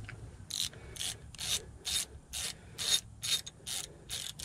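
Hand ratchet on an 8 mm Allen socket, rasping in short, even bursts about twice a second as the loosened front-differential drain plug of a Polaris RZR is spun out.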